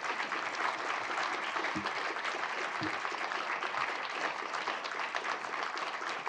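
Audience applauding: many people clapping at once, a steady, dense spread of hand claps.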